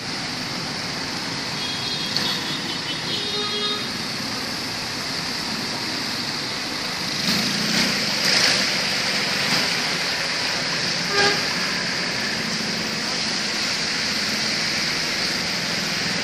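Steady hiss of rain and wet traffic on a flooded road, heard from inside a car. Car horns toot over it, one held for about two seconds near the start and a short toot about eleven seconds in.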